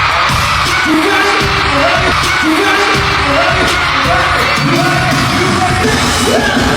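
Loud pop music with sung vocals over a heavy, steady bass beat.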